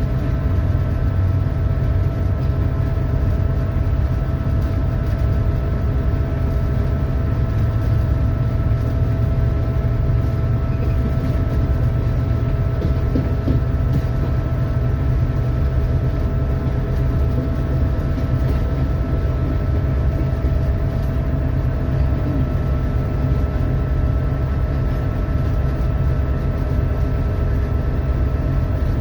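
Locomotive running steadily along the track, heard from inside the cab: a constant heavy low rumble with a steady whine above it.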